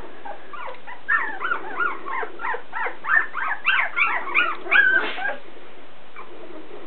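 A litter of three-week-old Portuguese Water Dog puppies whining and squealing: many short rising-and-falling squeaks, overlapping several times a second, dying down about five seconds in. The puppies are hungry and waiting for their mother to feed them.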